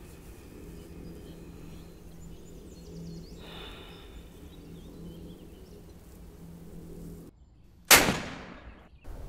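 A single loud rifle shot near the end, sharp and with a tail that dies away over about a second, coming just after the sound drops to silence. Before it, a low steady drone.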